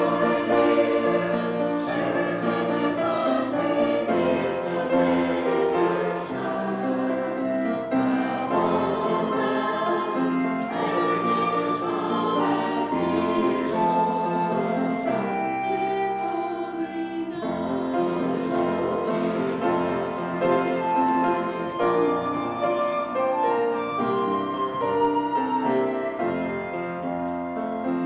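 A choir singing a Christmas anthem with piano accompaniment, in long held notes.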